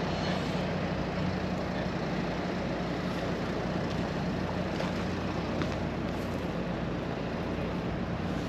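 A motor vehicle running steadily: an even engine hum with road noise and no change in pace.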